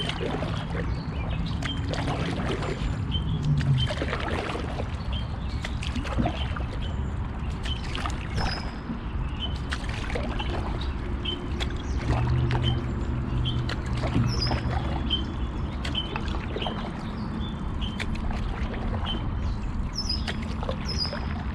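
Canoe paddling: water dripping and splashing off the paddle, with scattered light knocks against the hull. A bird repeats a short high chirp about once a second, and a few higher, falling calls come in near the end.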